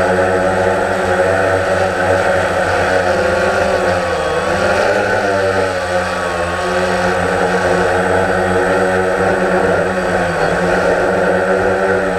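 DJI Phantom quadcopter's four electric motors and propellers buzzing, heard close up through the GoPro mounted on it. The pitch wavers as the motors change speed, sinking about four seconds in and climbing again as it manoeuvres.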